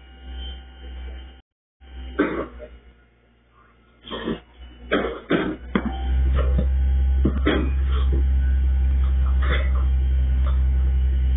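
Rear-loading garbage truck at the curb: a series of bangs and thumps as bulk waste is thrown into the rear hopper. About six seconds in, the truck's engine comes up to a loud steady drone as it runs the packer.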